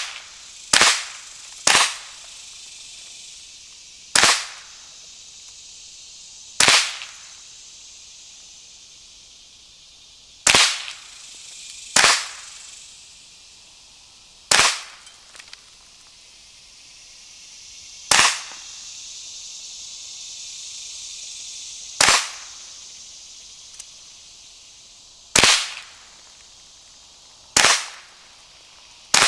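Marlin Model 60 .22 LR semi-automatic rifle firing slow, deliberate single shots, about a dozen sharp cracks spaced one to four seconds apart.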